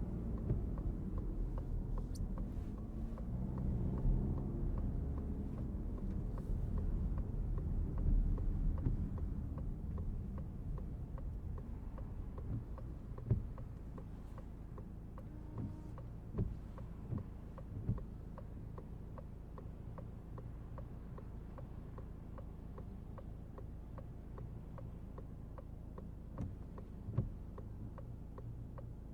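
Citroen C5 Aircross 1.5-litre diesel SUV with low road and engine rumble that eases about ten seconds in as the car slows, leaving a quieter idle with rain patter and faint regular ticking. A few soft thumps stand out later on.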